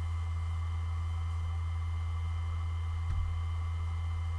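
Western Digital WD1600AVVS 3.5-inch 5,000 RPM hard drive spinning at speed: a steady low hum with a few faint, steady high whining tones above it. A brief low thump comes about three seconds in.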